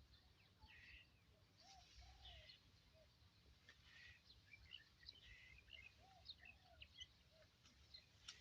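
Faint birds chirping: scattered short chirps, with a few brief lower arching calls.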